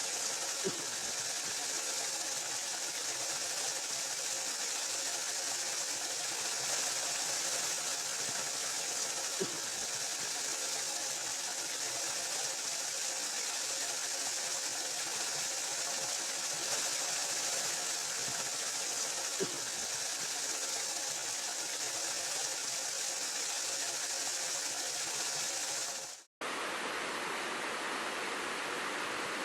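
Waterfall: a steady rush of falling water with a faint steady hum under it. Near the end it cuts abruptly to another steady roar of water.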